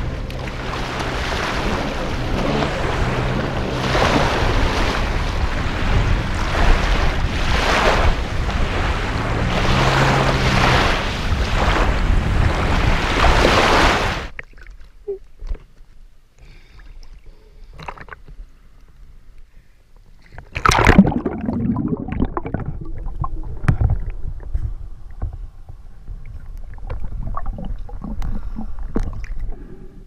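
Lake water splashing as a swimmer wades in and swims through the shallows. About halfway through, the sound drops suddenly to a muffled hush as the camera goes under the water. A loud splash comes a few seconds later.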